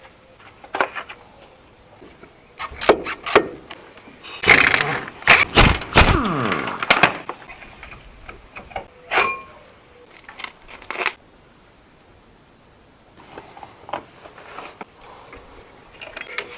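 Metal clinks, scrapes and clicks of tools and parts being handled during front brake pad work on a car. The loudest is a dense run about four to seven seconds in, and there is a quiet stretch after about eleven seconds.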